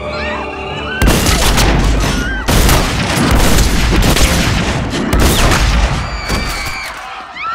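A rapid series of loud, booming gunshots with heavy echoing tails, starting about a second in and lasting several seconds. Screams rise near the end.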